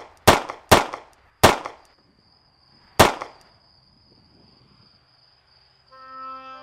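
Gunshots: three sharp shots in quick succession, then one more about a second and a half later, each with a short echo. A thin, steady high tone follows, and music comes in near the end.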